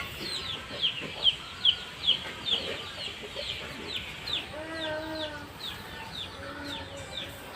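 Birds chirping: short, high chirps that fall in pitch, repeated about three times a second, with two longer, lower calls near the middle.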